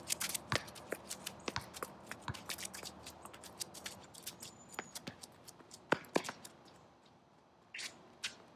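Quick footsteps of a fencer shuffling and advancing in a footwork drill: a run of sharp, irregular taps and scuffs of shoes on the ground, several a second, with a short lull shortly before the end.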